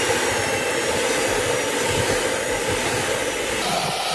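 Electric hand mixer running steadily, its twin beaters whipping cream in a plastic bowl. The tone of the motor shifts slightly near the end.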